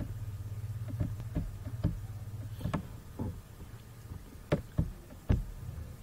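Light computer-mouse clicks and scroll-wheel knocks, about eight irregular taps, over a steady low hum.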